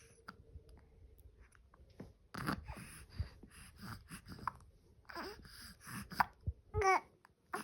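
A baby girl hiccuping and babbling in short bursts, with a few sudden hiccup sounds and a short high-pitched, falling cry near the end.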